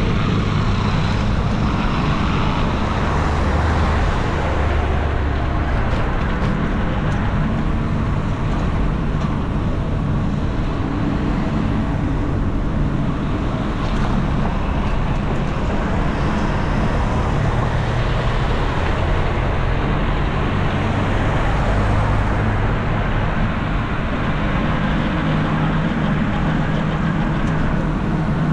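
Continuous road-vehicle noise: engines running with a steady low hum over a wash of traffic sound.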